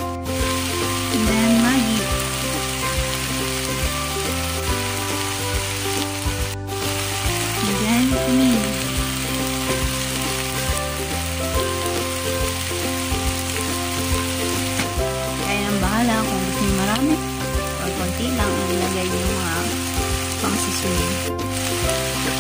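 Chicken pieces with onion, garlic and tomato sizzling as they sauté in a pot, a steady frying hiss. Background music plays along with it.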